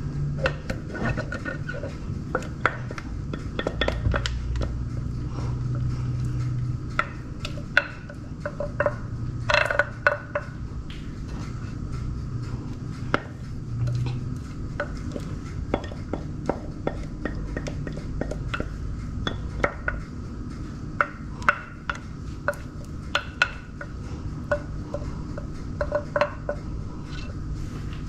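Thick banana bread batter being scraped out of a bowl and spread into a parchment-lined metal baking pan with a wooden spatula: wet plops and scraping, with many small clicks and taps of the spatula against the bowl and pan, over a low steady hum.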